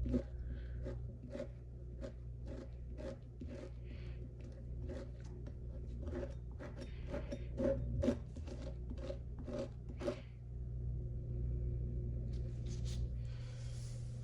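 Butter knife spreading butter on slices of Italian bread: a quick run of short scraping strokes that stops about ten seconds in, over a low steady hum.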